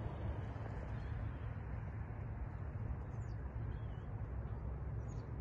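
Outdoor ambience: a steady low rumble with hiss, and two brief high chirps from a small bird, about three and five seconds in.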